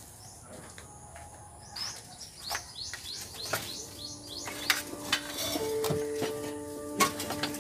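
Metallic clattering and knocking as a rusty 1980s Muddy Fox BMX is pulled out of a pile of old bikes and scrap metal, with birds chirping. Music comes in near the end.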